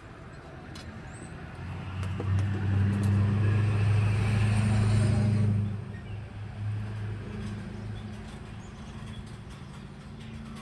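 A motor vehicle's engine with a low, steady drone, growing louder over a couple of seconds and then dropping away about six seconds in, as it passes by. Faint bird calls are heard behind it.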